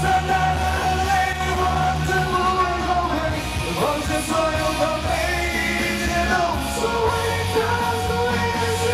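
Live pop-rock band playing with long held sung notes over it, the pitch sliding briefly about four seconds in.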